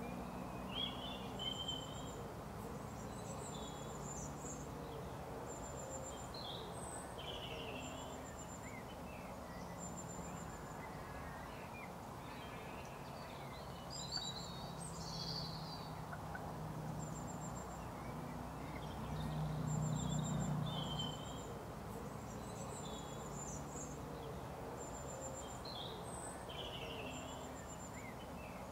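Small birds singing and calling: a high, short trill repeated every couple of seconds among scattered chirps, over a low steady hum that swells briefly about twenty seconds in.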